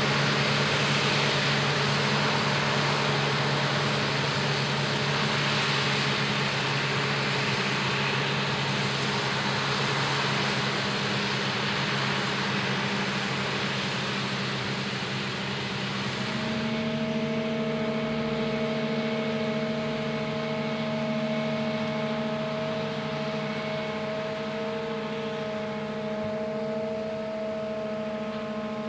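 New Holland FR9060 self-propelled forage harvester chopping maize: a steady drone of engine and cutterhead under a loud rushing hiss of crop being blown out of the spout. About halfway it changes to a quieter, steadier sound with several high whining tones.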